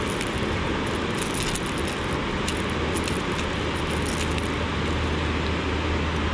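Metal multi-tool pliers and a lure's hooks clinking and jingling as the hooks are worked out of a fish's mouth, over a steady rushing background noise with a low rumble.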